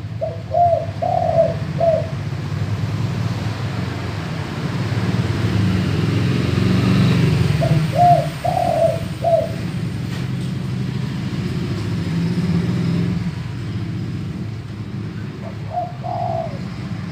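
Male spotted dove (tekukur) singing its deep cooing song in three phrases of short coos, the last one near the end cut short. A steady low rumble runs underneath.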